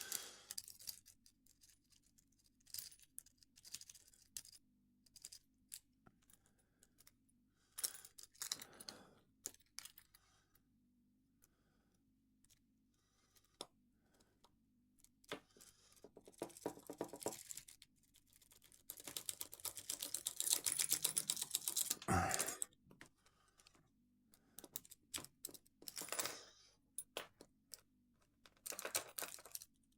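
Lock pick raking the pin stack of a Master Lock padlock with a tension wrench: bursts of rapid, scratchy metal clicking, densest around twenty seconds in, with a single knock just after.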